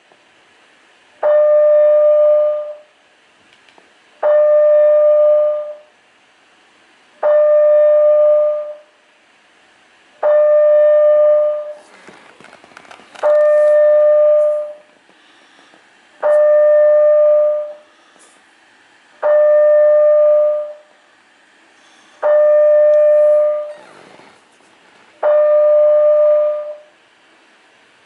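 Building fire alarm sounding: a loud, steady, pitched tone lasting about a second and a half, repeating about every three seconds, nine times.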